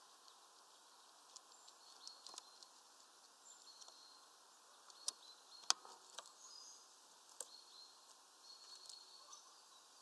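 Red squirrel nibbling at peanuts through a mesh feeder bag: faint scattered clicks and taps, with a few sharper ones a little past halfway. Thin high notes sound briefly now and then in the background.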